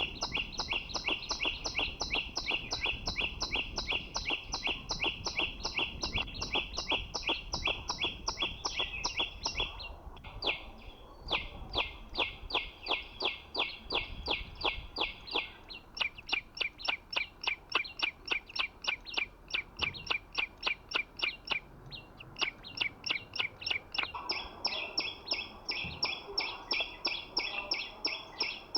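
A small songbird's call: quick, evenly spaced high chirps, about three a second, repeated in long runs with short breaks between them. The call is of the kind played as a lure to trap the green 'chim sâu'.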